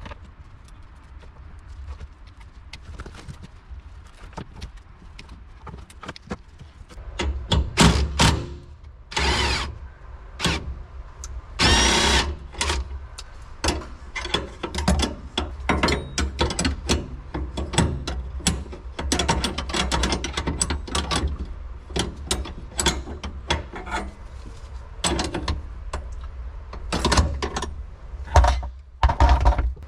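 Hand tools working on car interior fittings: a ratchet clicking, with scattered clicks and knocks that grow busier and louder about seven seconds in, and a few short, louder rasping bursts.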